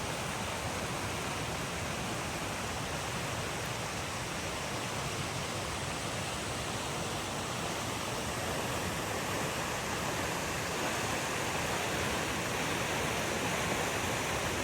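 Waterfall: a steady rush of falling water, slightly louder in the last few seconds.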